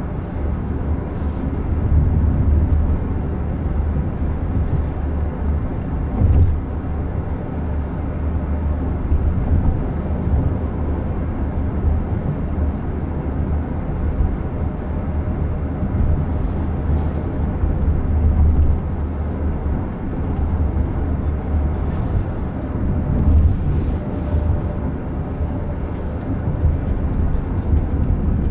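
Steady low road and tyre rumble inside the cabin of a Waymo Jaguar I-PACE electric car driving along, swelling a little now and then.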